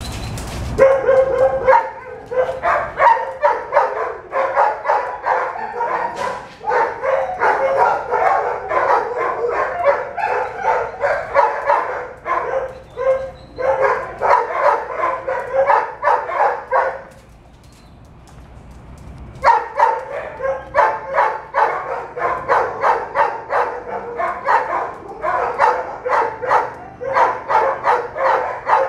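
A dog barking in a rapid, steady string, with a break of about two seconds a little past the middle before the barking picks up again.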